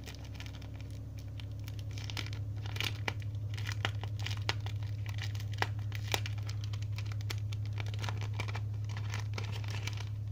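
Clear cellophane sleeve crinkling and crackling as it is handled and pulled open by hand, in many short crisp bursts, over a steady low hum.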